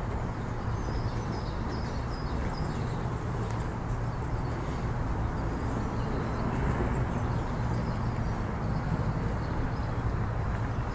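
Steady low outdoor rumble with a few faint bird chirps in the first few seconds.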